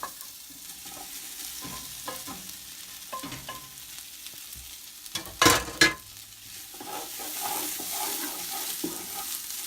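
Cooked bean-and-vegetable mixture being stirred and scraped in a pot over a steady sizzle. There are small clicks throughout, and two loud clatters of the utensil against the pot about five and a half seconds in.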